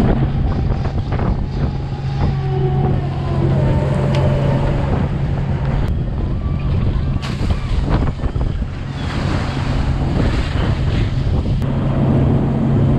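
Trawler deck at sea: the ship's engine drones steadily under wind buffeting the microphone and the rush and splash of seawater, with a few knocks now and then.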